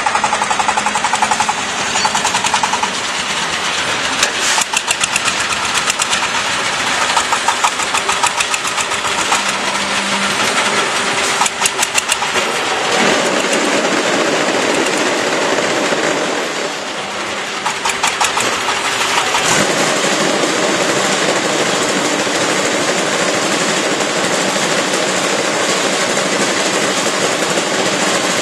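Automatic concrete block making machine running: a loud, dense mechanical din with short bursts of rapid rattling every few seconds as the machine vibrates and compacts the blocks. From about two-thirds through the noise turns steadier and fuller.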